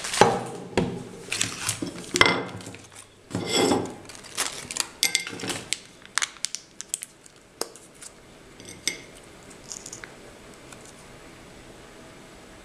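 Crinkling foil MRE ration pouches, with sharp clicks and clinks of a cracker and utensil against a ceramic plate. The handling is busy for the first several seconds, then thins to a few scattered clicks.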